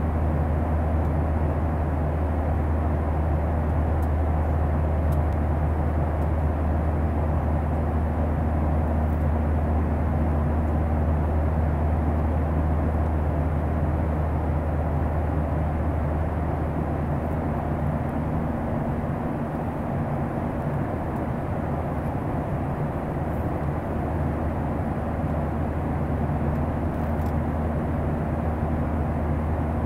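Steady cabin drone inside a Boeing 737-900 airliner: an even rushing of air and engine noise over a strong low hum, with faint steady tones above it.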